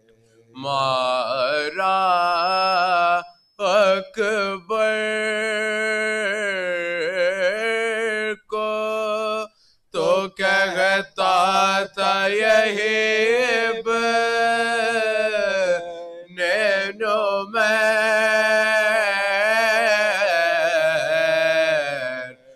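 Men chanting a marsiya, an Urdu elegy, unaccompanied: long sung phrases with held, wavering notes, broken by short pauses for breath.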